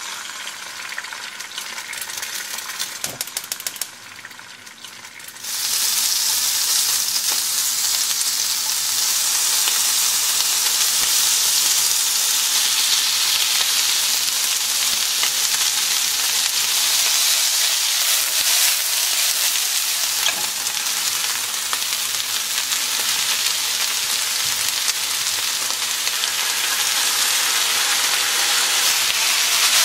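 Food sizzling in a hot frying pan. First an egg frying gently with some crackles; after a short lull, a louder, steady sizzle from about five seconds in as cabbage, pork and squid, then thick noodles, are stir-fried.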